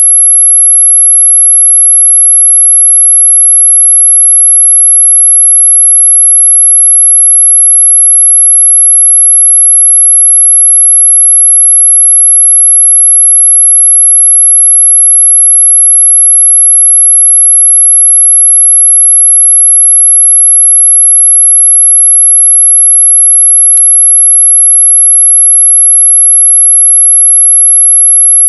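One steady, very high-pitched electronic sine tone, held without any change in pitch or loudness, with a single faint tick about three-quarters of the way through.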